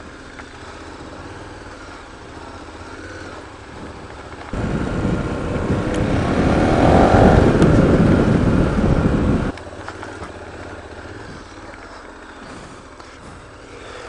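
KTM adventure motorcycle running at trail speed, heard faintly through a helmet-mounted microphone. About four seconds in a loud rushing noise starts abruptly, swells, and cuts off suddenly some five seconds later.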